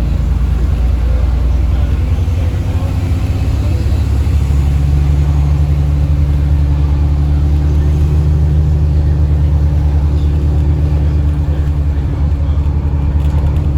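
Alexander Dennis Enviro 400 MMC double-decker bus engine running under load, a loud steady drone. About four seconds in a deeper tone comes in and holds, with a pitch above it rising slowly.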